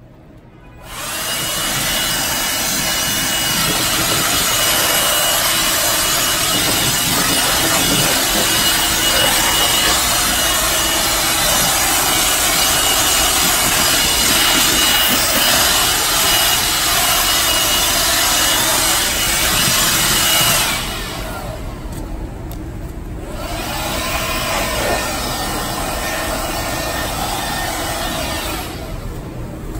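A cordless 18V blower running, blowing dust out of a rooftop HVAC unit. It is a loud, steady rush with a thin motor whine, starting about a second in. After about twenty seconds it drops to a quieter, uneven rush.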